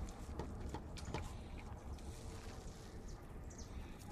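Kittens chewing and crunching waffles: a series of small, sharp, crisp clicks, most of them in the first second and a half, over a low steady rumble.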